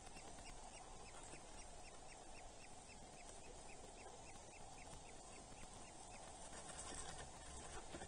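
Eurasian hobby chick giving faint begging calls while being fed: a rapid, even series of short high chips, about three or four a second, fading out near the end, over a low steady hiss.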